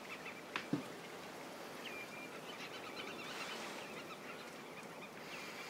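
A chorus of wild birds calling, with many short high calls and brief whistles over a steady outdoor hiss. A sharp click and a short low thud, the loudest sounds, come just under a second in.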